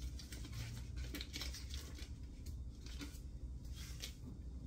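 Paper wrapper being peeled and crinkled off a stick of butter, a run of irregular rustling and small tearing crackles.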